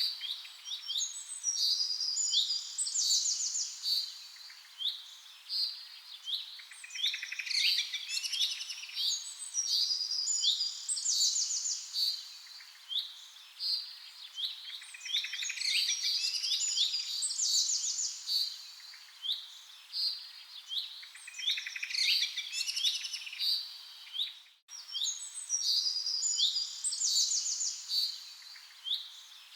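Many small songbirds chirping and trilling, short high calls and quick downward-sweeping notes overlapping one another, with a brief break about 25 seconds in.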